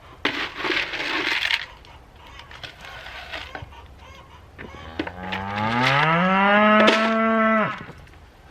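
A cow mooing: one long call that rises in pitch, holds, then breaks off, preceded by a short harsh noise near the start.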